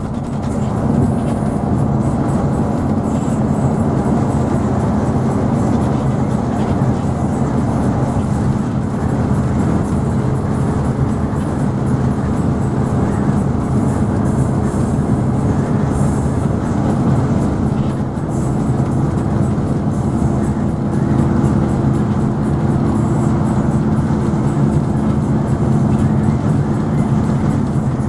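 Steady road and engine noise of a vehicle driving on a highway, a low, even drone with no break.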